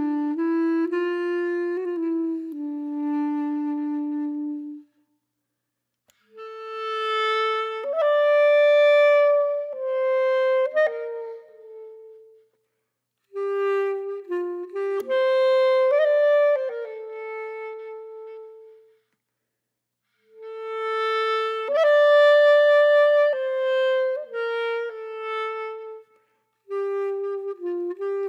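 Background music: a single wind instrument playing a slow melody in phrases of several seconds, each followed by a short silence.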